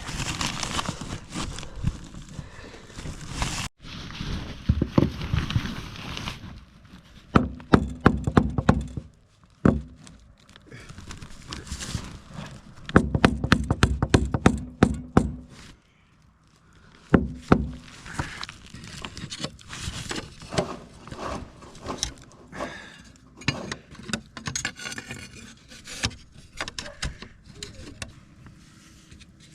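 Irregular knocks, clicks and scrapes of hand tools working on metal as a bolt is taken out, with dense runs of sharp clicks about a third of the way in and again near the middle.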